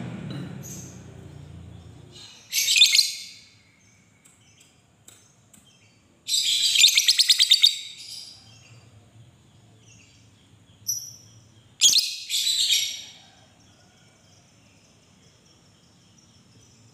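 Fischer's lovebird giving shrill chattering calls in four bursts, the longest a rapid chatter lasting about a second and a half. A low hum fades out over the first two seconds.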